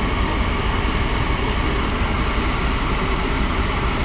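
Steady low rumbling drone with no distinct events.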